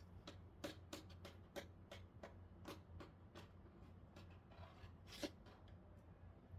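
Faint, irregular light clicks and taps, one a little louder about five seconds in, from small parts being handled while a television is taken apart.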